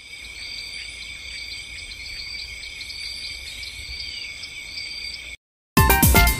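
Steady high-pitched insect chorus, like crickets, that cuts off sharply about five seconds in. After a short silence, loud electronic music starts near the end.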